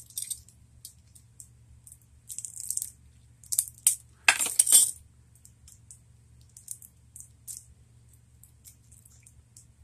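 Scattered light clicks and clinks of small hard items being handled, with two short rattles about four seconds in, over a faint low hum.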